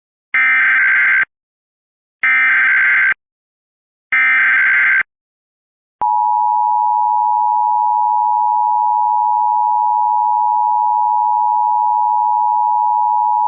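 Emergency Alert System alert opening: three short bursts of the SAME digital header, each a harsh data screech lasting about a second, then about six seconds in the two-tone EAS attention signal, a steady loud tone held for about eight seconds.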